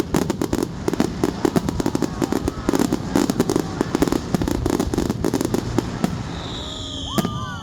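Fireworks finale: a rapid barrage of bangs and crackling reports, many a second, thinning out near the end, where a high whistle sounds.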